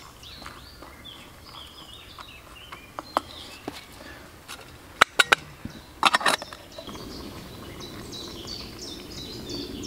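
Woodland birdsong, several birds chirping on and off. A few sharp knocks stand out about five and six seconds in, and a soft steady rushing noise comes in for the last few seconds.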